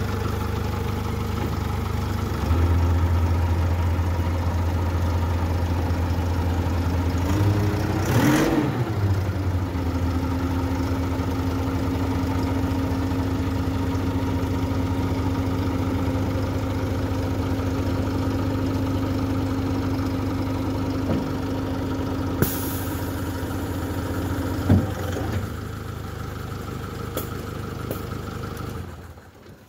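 BAW light truck's engine running steadily while its power take-off drives the hydraulic pump that raises the dump body. A steady hum joins about ten seconds in and stops a few seconds before the end, followed by a sharp knock.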